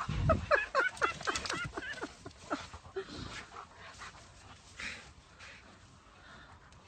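A husky and an Illyrian Shepherd Dog play-fighting: a quick run of short, falling yelps and whines in the first two or three seconds, then the sounds grow fainter.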